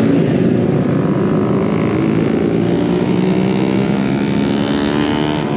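Motorcycle engines running steadily.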